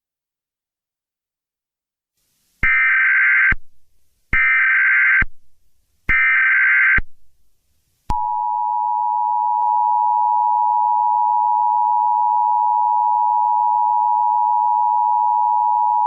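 Emergency Alert System tones: three short bursts of SAME digital header data, each just under a second and evenly spaced, starting a couple of seconds in, then the steady two-tone EAS attention signal (853 and 960 Hz sounding together) from about eight seconds in, held unbroken.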